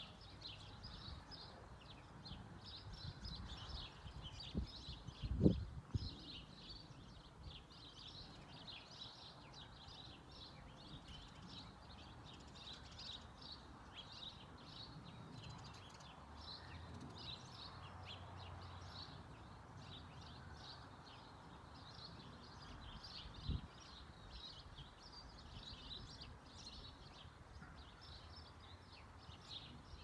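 A dense, continuous chorus of short high-pitched chirps over a faint low rumble, with a low bump about five seconds in and another near 23 seconds.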